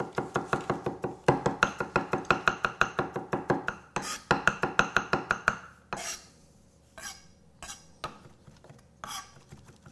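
Knife chopping garlic on a thick wooden butcher block: a fast, even run of knocks, about seven a second, stopping about six seconds in. After that come a few scattered scrapes and taps as the blade gathers the minced garlic.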